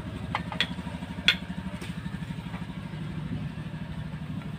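An engine idling steadily with an even low pulsing, and over it a few sharp clicks and knocks as the wooden stock and bar of a homemade slingshot fish gun are handled, the loudest about a second in.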